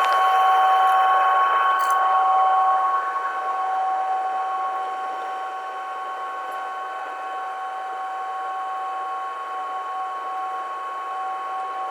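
Steady whine inside a Boeing 747-400's cabin: a few fixed high tones over a hiss, loudest in the first three seconds and then settling.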